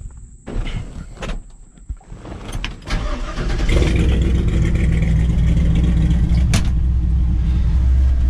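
A few knocks, then the truck's 6.0-litre LS V8 comes in about three seconds in and runs with a steady deep rumble, heard from inside the cab. It breathes through a single-chamber Flowmaster exhaust that dumps out ahead of the rear wheels.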